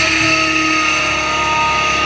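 Hydraulic excavator's diesel engine working under load, with steady whining tones, as the boom lifts a full bucket of dirt.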